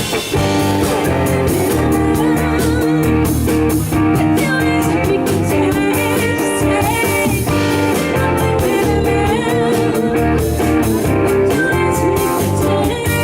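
Live band playing a guitar-led blues-rock number.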